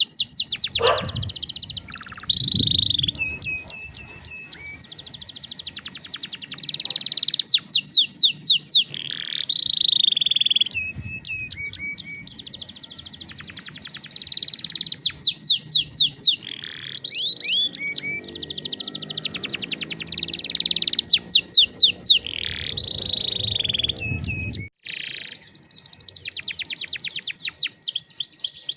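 Domestic canary singing long song phrases of rapid trills and quick repeated downward-sweeping notes, broken by short pauses.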